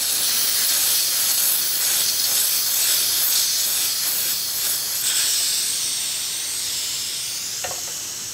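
Compressed air hissing steadily out of the opened drain screw under an OMA air compressor's tank, draining the condensate water from the tank. The hiss slowly weakens toward the end as the tank's remaining pressure bleeds off.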